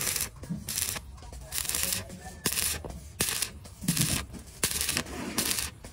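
Rhythmic rasping strokes, about three every two seconds, each a short burst of hiss, over a low steady hum.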